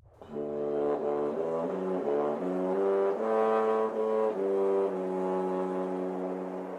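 Short brass intro music: a run of held chords changing about once a second, ending on a long held chord.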